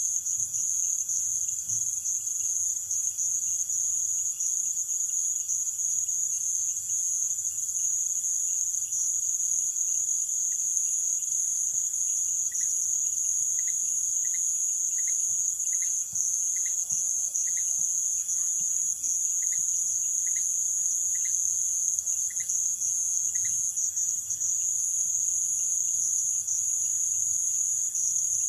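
Nighttime chorus of rainforest crickets and other insects: a dense, steady, high-pitched shrill. From about halfway through, a short call repeats a little more than once a second beneath the chorus.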